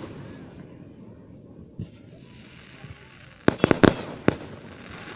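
Fireworks going off: after a lull, a rapid cluster of sharp cracks about three and a half seconds in, then one more crack a moment later.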